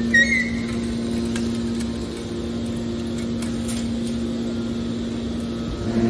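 Hydraulic scrap aluminium can baler running, its motor and pump giving a steady hum over a low rumble, with a brief high squeak right at the start.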